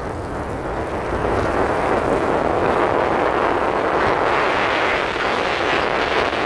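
Car driving on a wet highway: a steady hiss of tyres on wet pavement and road noise, heard from inside the car, growing a little brighter about four seconds in.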